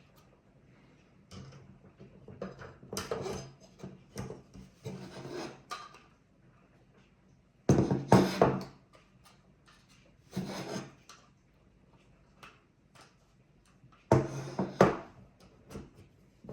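Hands handling the parts of a small NAS enclosure during a RAM and SSD upgrade: irregular bouts of rubbing and scraping with clicks and knocks, loudest about halfway through and again near the end.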